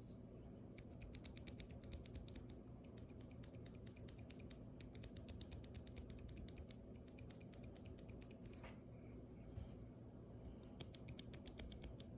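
Mechanical keyboard switches in a wooden-case keyboard with an aluminium plate, pressed in quick succession: a fast run of clacks, several a second, that stops for about two seconds and then resumes briefly near the end.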